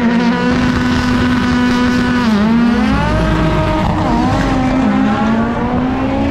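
Drag-race car engine pulling hard at high revs down the strip. The pitch holds steady, then dips and climbs again at gear changes about two and a half and four to five seconds in.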